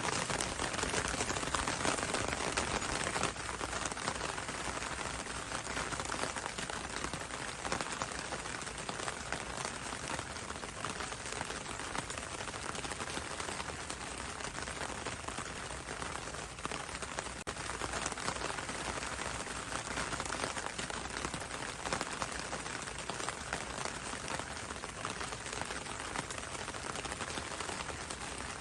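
Steady rain falling on leaves: dense small drop ticks over an even hiss.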